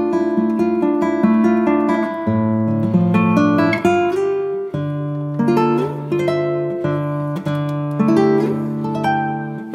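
Background music: an acoustic guitar playing plucked and strummed chords, with the bass note changing every couple of seconds.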